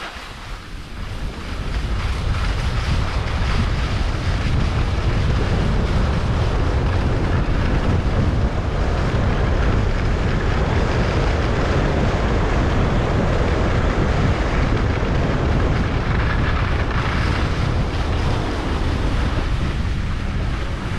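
Wind buffeting the action camera's microphone over the hiss and scrape of skis carving packed piste snow. It is quieter for the first second or so while the skier slows on a slight rise, then runs steady.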